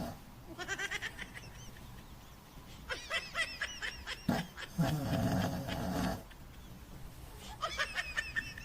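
A sleeping Shih Tzu snoring: three bouts of rattling, fluttering snores a few seconds apart, with a lower, longer breath sound between the second and third.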